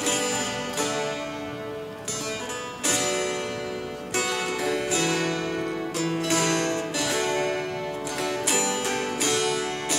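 Several Appalachian mountain dulcimers played together, a slow tune with chords strummed about once a second and left to ring.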